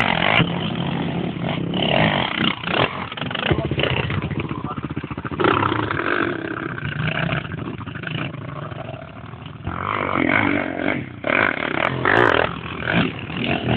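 Quad bike (ATV) engines running and revving on a dirt track, the engine note rising and falling as the throttle opens and closes.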